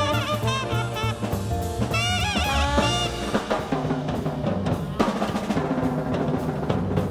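Live traditional jazz band playing a swing number: trumpet and trombone lines with wide vibrato over walking bass and drums. About three seconds in, the horns thin out and the drum kit comes forward with sharp snare and rimshot strokes over the bass.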